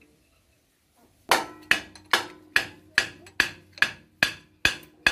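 Hammer striking steel on a Massey Ferguson tractor's rear axle hub, a steady run of ringing metallic blows about two and a half a second, starting a little over a second in.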